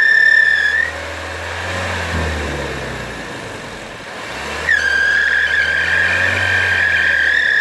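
Engine bay squeal of a running Opel Astra K 1.6T B16SHT turbo petrol engine: a steady high whistle over the low engine hum that cuts out about a second in and comes back near the end with a brief swoop in pitch. The owner suspects either the accessory belt drive or the diaphragm in the valve cover.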